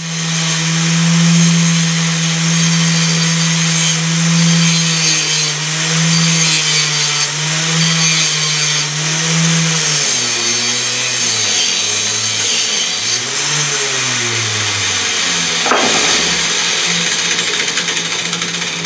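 Angle grinder clamped as a bench grinder, its motor running with a steady whine. About ten seconds in, metal is pressed against the disc, grinding and throwing sparks, and the motor's pitch drops and wavers under the load.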